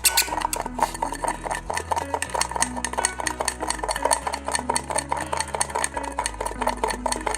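A spoon beating coffee powder, sugar and a little water in a cup into a froth, clinking rapidly against the cup several times a second, over background music.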